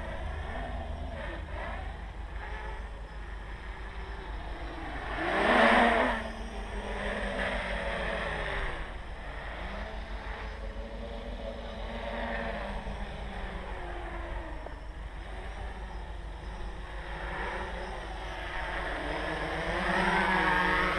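Armattan CNC 355 quadcopter's electric motors and propellers whining, the pitch rising and falling as the throttle changes. It swells loudest about six seconds in and again near the end.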